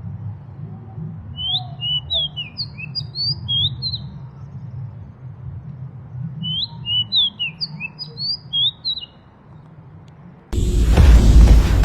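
A bird chirping in two quick runs of short, high, sliding notes over a steady low rumble. Near the end a loud rushing burst of noise covers everything.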